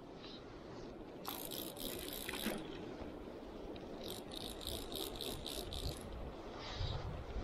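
Fly reel's click-and-pawl drag ratcheting: one run lasting about a second, then a quick series of short ratchets, about four a second, as line is wound on or pulled off the reel.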